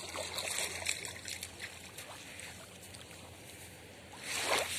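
Small waves lapping at the edge of a beach of crushed shells and gravel, with a patter of small clicks in the first couple of seconds; a wave washes in louder near the end.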